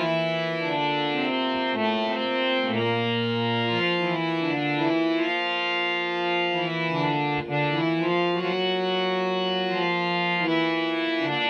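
Three-reed-set (male, male, female) scale-changer harmonium played by hand-pumped bellows: a melody of reedy held notes changing every fraction of a second over a sustained lower note, with a brief dip in loudness about seven and a half seconds in.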